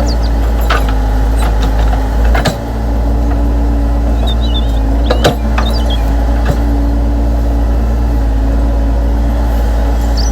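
Electric motors and gearboxes of hobby RC construction machines running steadily with a whir, with a few sharp clicks and clacks from the metal parts.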